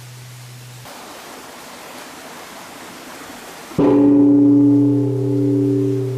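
Large Japanese temple bell (bonshō) struck once near four seconds in, with a loud attack and then a deep ringing hum of several tones that swells and fades slowly. Before the strike there is a low hum that cuts off under a second in, then a soft hiss.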